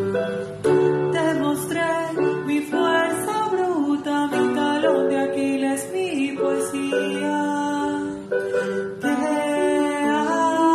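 A woman singing a song into a microphone, accompanied by plucked guitar.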